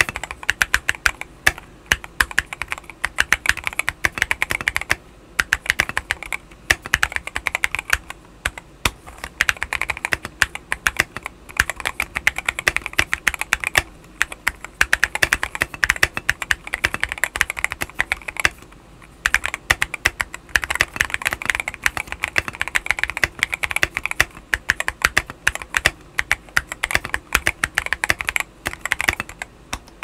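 Typing on an Akko MOD007 mechanical keyboard with an FR-4 plate, Novelkeys Silk Black linear switches and PBT XDA keycaps, modded with a tempest mod, force break mod, plumber's tape and polyfill. Fast runs of keystrokes are broken by a few short pauses.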